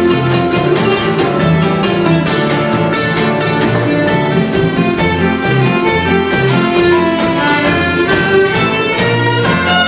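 Small acoustic folk ensemble playing a Yiddish (klezmer) dance tune: violin on the melody over steady strumming from a steel-string acoustic guitar, a nylon-string classical guitar and a mandolin.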